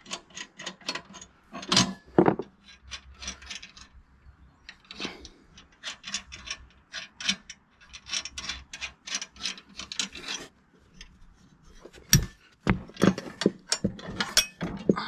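Nuts being turned off bolts by hand on the steel uprights of a sawmill's sawhead: a quick run of small metallic clicks and thread rubbing, with a few sharper metal clanks in the last few seconds as parts are handled.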